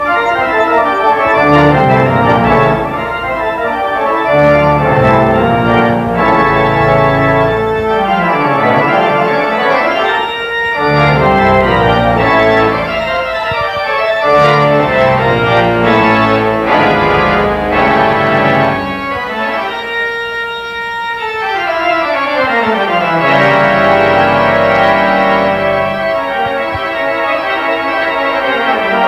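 Robert Morton theatre pipe organ playing loud, full held chords, with a long falling run down into the bass about twenty seconds in.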